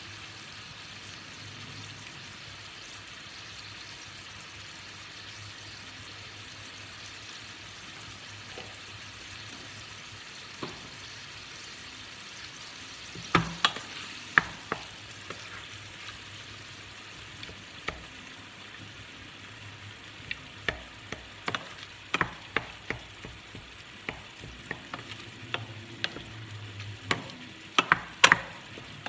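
Ground meat sizzling steadily as it browns in a stainless steel pot. From about halfway through, a wooden spoon stirs it, scraping and clacking against the pot in short runs that are busiest near the end.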